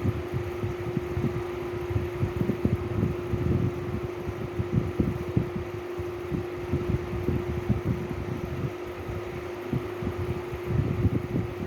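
Electric fan running with a steady hum over an uneven low rumble.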